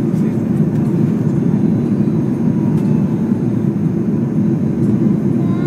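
Steady low roar of jet airliner cabin noise during the climb after takeoff: engine and airflow noise heard inside the cabin at a window seat over the wing.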